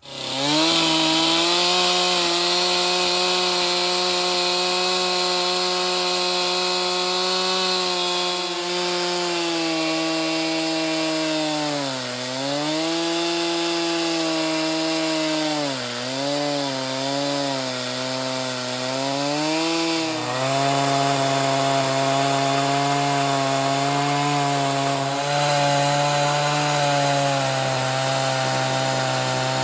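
Petrol chainsaw at full throttle ripping lengthwise through a pine log in an Alaskan chainsaw mill. The engine holds a steady high pitch, dips and wobbles several times from about twelve seconds in as it bogs under the cut, then runs on at a lower, steadier pitch under load.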